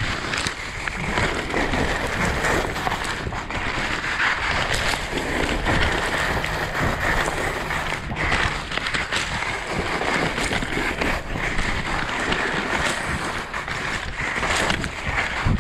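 Skis scraping and chattering over chopped-up snow in a steady run, with wind rushing over the action camera's microphone.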